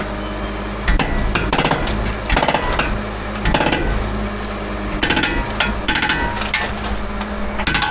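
Jackhammer breaking up a concrete pad in several short bursts of rapid hammering, starting about a second in. An engine runs steadily underneath.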